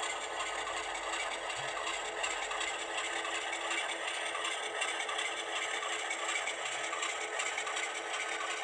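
HO scale model freight train rolling slowly along the track, its wheels giving a steady rattle on the rails.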